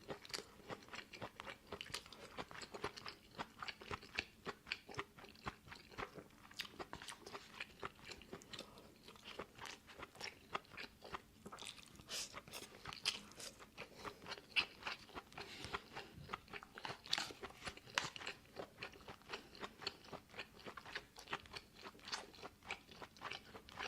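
A person chewing crunchy food close to the microphone, with quick, crisp crunches at about three a second.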